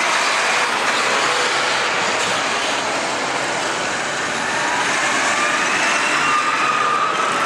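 Two large six-cylinder diesel tractors with mounted reversible ploughs driving past on a paved road, a John Deere 8310R going by first and a New Holland T7.315 following, with steady engine and tyre noise. An engine whine rises in pitch through the second half as the New Holland comes close and passes.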